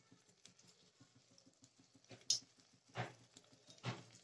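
Faint crackle of a batter-coated paneer ball deep-frying in hot oil, with a few sharper clicks or pops about two, three and four seconds in.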